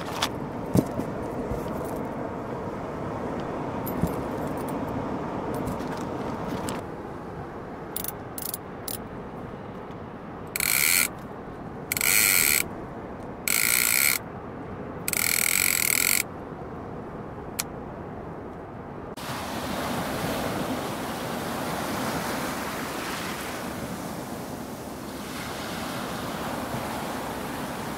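Line pulled off a conventional reel by hand in four strokes, its clicker giving a loud buzz of about a second each time. Before that come rustling and a few clicks of gear being handled; from about two-thirds of the way in, the steady wash of surf and wind takes over.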